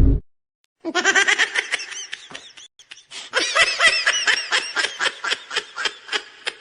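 A high-pitched laugh in quick repeated bursts, several a second, starting about a second in and thinning out near the end. At the very start the tail of a loud burst of noise cuts off.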